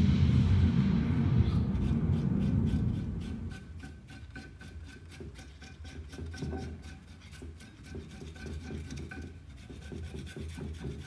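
Quick, regular rasping strokes, about five a second, of a carrot being scraped by hand, while background music fades out over the first few seconds.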